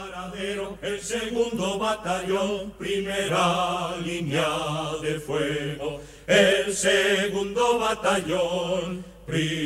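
A group of low voices singing a slow, chant-like song in unison, with long held notes. The phrases break off briefly about six seconds in and again near the end.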